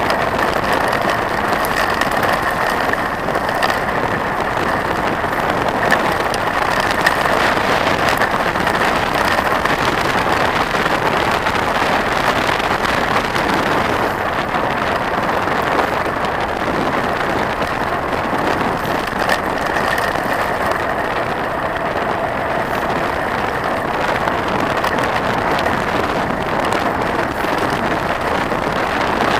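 Mountain bike rolling down a gravel forest road: steady tyre noise on the loose surface with small rattles and knocks from the bike, and wind rushing over the handlebar-mounted camera's microphone.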